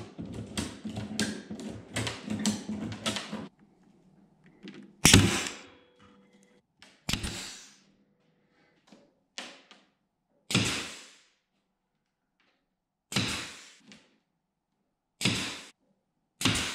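A ratchet strap being cranked tight, a quick run of ratcheting clicks that stops after about three and a half seconds. Then a pneumatic brad nailer fires about seven times, a shot every one to two seconds, each with a short fading tail.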